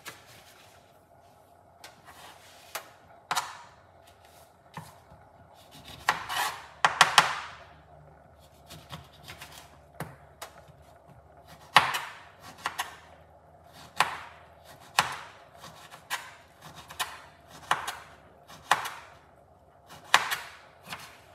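Knife cutting a lemon on a chopping board: a series of sharp knocks, roughly one a second, with a longer, denser stretch of cutting about six to seven seconds in.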